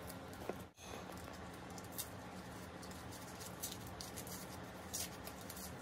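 Light rustling and scattered small ticks of wrapping being handled and unwrapped.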